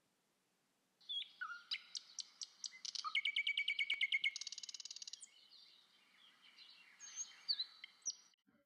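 Songbirds chirping and singing, starting about a second in, with a fast trill of rapidly repeated notes through the middle, then scattered whistled calls.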